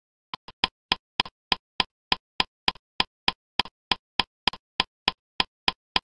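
Steady, evenly spaced sharp ticks like a clock ticking, about three and a half a second, starting a moment in.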